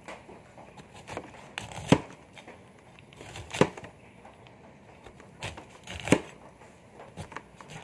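Knife cutting into a kamansi breadfruit: faint crackling and scraping of the rind, with three sharper knocks of the blade about two, three and a half and six seconds in.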